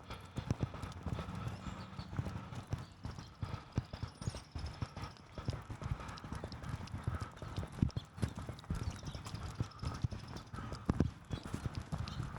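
Footsteps on a wet sidewalk, a quick, uneven run of steps and small clicks.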